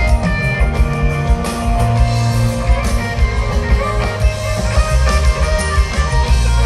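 Rock band jamming live on electric guitars, bass and drum kit, with guitar notes held over a busy drum beat and no vocals.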